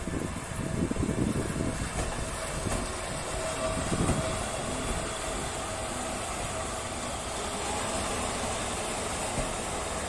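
Train moving along the track behind the Skoda Series 42 electric locomotive 42.184: heavy low rumbling over the first few seconds, then settling into a steady running noise with a held tone.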